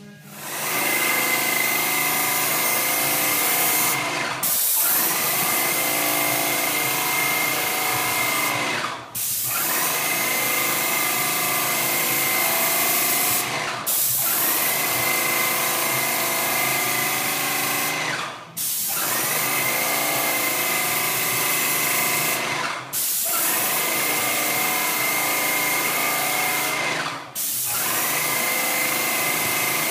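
Airless paint sprayer in use on a ceiling: the loud hiss of the spray gun atomising paint with a steady high whine, in passes of about four seconds each, broken six times by a brief gap as the trigger is let go between strokes.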